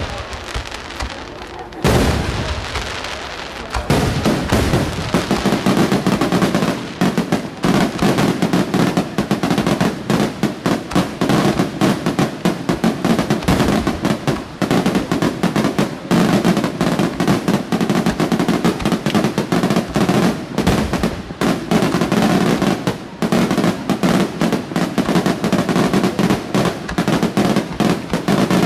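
Aerial fireworks: two heavy shell bursts in the first two seconds, then from about four seconds in a dense, continuous rapid-fire barrage of bangs and crackling.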